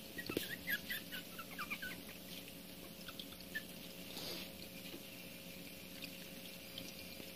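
Newborn Pomeranian puppy squeaking: a quick run of about a dozen short, high squeaks in the first two seconds, then a few scattered ones, with a brief rustle about four seconds in.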